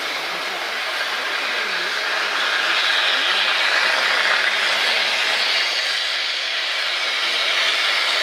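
Steam hissing steadily from the ČSD class 354.1 steam tank locomotive 354.1217 as it vents, louder from about three seconds in.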